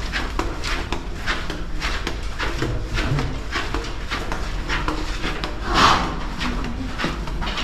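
Footsteps on a hard surface at a steady walking pace, about two or three a second, over a steady low hum. One louder brief sound comes about six seconds in.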